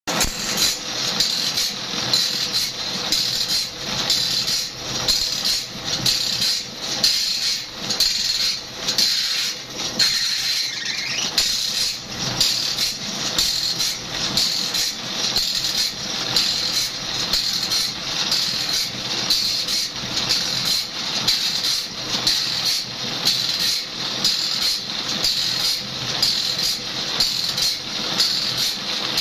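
Band saw blade sharpening machine: a motor-driven abrasive disc dips onto each tooth of a sawmill band saw blade in turn, a high grinding hiss on every stroke in a steady, even rhythm over a constant motor hum.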